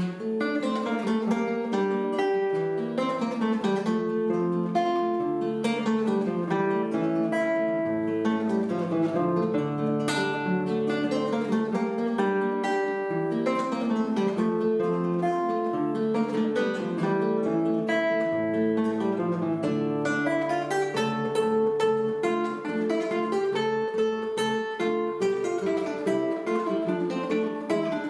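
Acoustic guitar music: a piece of plucked notes played continuously at an even level.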